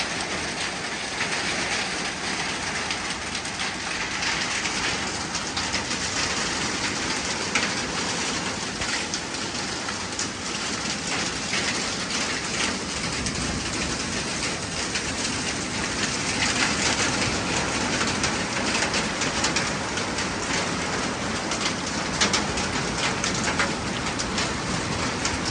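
Heavy rain mixed with hail pelting down, a dense steady clatter of countless small impacts.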